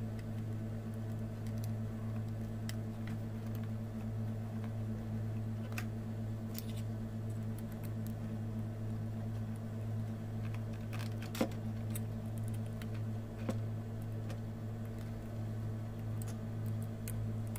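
A steady low hum, with a few light clicks and taps as a small metal rudder bracket is handled and fitted against the plastic hull of a model boat; the sharpest click comes about eleven seconds in.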